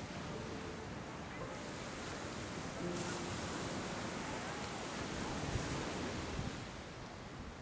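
Ocean surf washing onto a sandy beach, a steady rush of waves with wind on the microphone.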